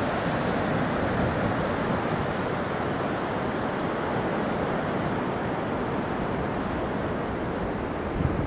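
Sea surf breaking on a sandy beach, a steady rush, mixed with wind on the microphone; a few gusts buffet the microphone near the end.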